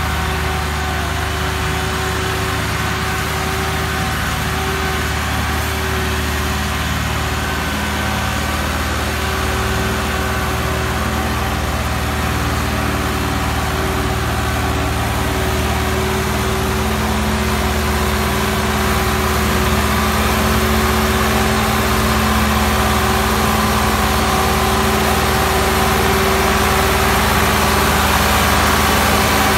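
Diesel engines of a Massey Ferguson 385 and a Ford 3610 tractor running steadily under load while they pull a heavily loaded trolley in tandem. The drone grows slightly louder in the second half.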